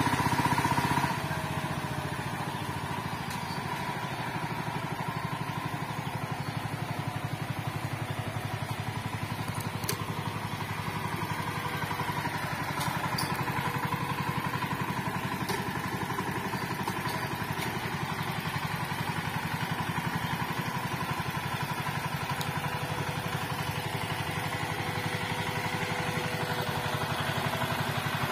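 Walk-behind power tiller's engine running steadily under load as its rotary tiller churns the soil, a little quieter from about a second in.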